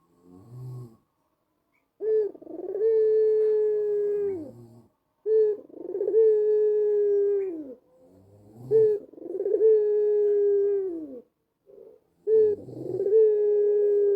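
White black-collared puter (Barbary dove) cooing: a short low note, then four long coos a few seconds apart, each a quick lead-in followed by a long, even note that dips at the end.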